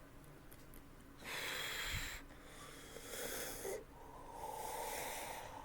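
A woman's heavy, noisy breathing: three long breaths of about a second each, as she fights to hold back a burp after drinking seltzer.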